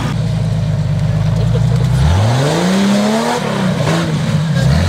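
Off-road 4x4 engine running at a steady pace, then revved hard about two seconds in; the revs climb, drop back and keep rising and falling.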